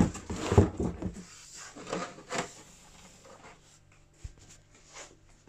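Cardboard box and packaging rubbing and scraping as a boxed 1/10-scale RC car is lifted out by hand, with a short low knock about four seconds in.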